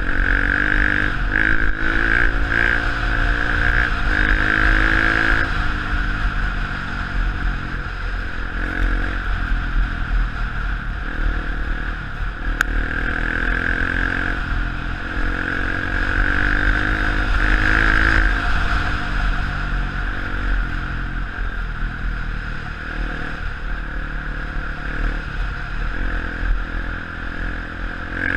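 Honda CRF150F dirt bike's four-stroke single-cylinder engine under way, its pitch rising and falling again and again as the throttle is worked and gears change.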